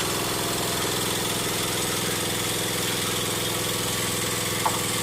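Multi-function wood planer machine running at a steady speed with a constant mechanical drone, and one brief click near the end.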